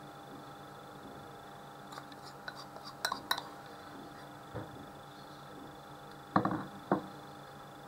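Metal spoon clinking a few times against a ceramic bowl while scooping a sticky paste, then two heavier taps near the end as it spreads the paste onto raw chicken fillet.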